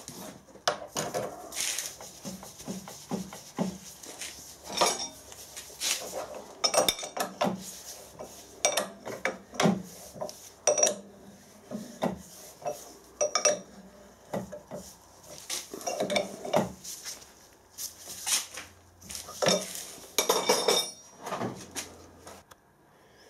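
Steel tooling clinking and clattering in short, irregular knocks as a large end mill and its collet are handled, fitted into a milling machine's collet chuck, and the collet nut tightened with a spanner.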